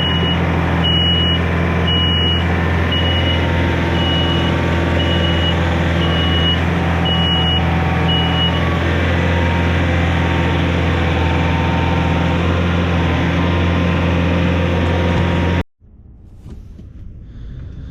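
A vehicle engine running steadily while its backup alarm beeps about once a second; the beeping stops about halfway through. Near the end the sound cuts off abruptly and a quieter engine sound rises.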